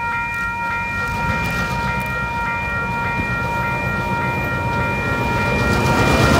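Level crossing warning bell ringing in steady repeated strokes, while the low rumble of an approaching train grows louder near the end.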